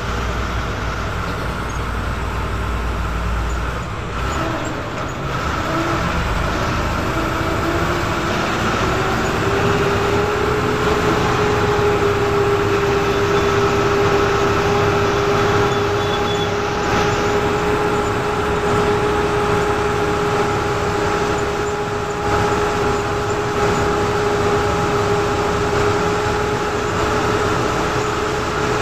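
Bus heard from inside its cabin while driving: a steady engine and drivetrain hum with road noise. A whine rises in pitch about six to ten seconds in as the bus picks up speed, then holds steady.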